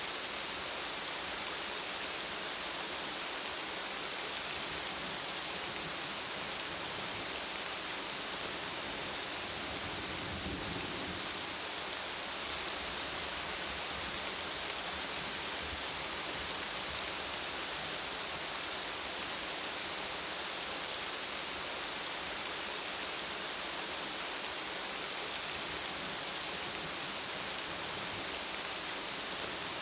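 Steady rain falling in an even hiss, with a brief low rumble about a third of the way through.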